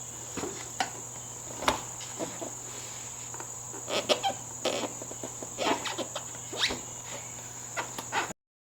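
Scattered knocks, clicks and rustles of a motorcycle seat being worked onto the frame by hand, over a steady high-pitched whine and a low hum. The sound cuts off abruptly near the end.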